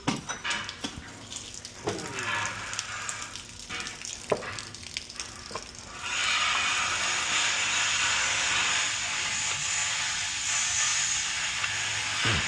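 Metal knocks and clanks of tools working on boiler piping, then a steady hiss that starts about six seconds in and keeps going.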